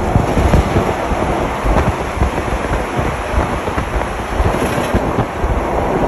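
Steady road and wind noise while driving beside a livestock truck: tyre and engine rumble from the traffic, with wind rushing over the microphone.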